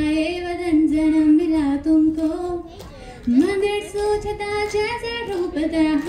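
A woman sings solo into a microphone, holding long sustained notes with no accompaniment audible. She takes a short breath about three seconds in, then starts a new phrase that rises to a higher held note and falls back.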